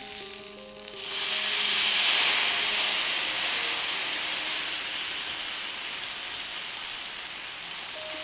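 Sama rice dosa batter hitting a hot, oil-greased tawa and sizzling with steam, starting suddenly about a second in, loudest just after, then slowly dying down as the batter is spread.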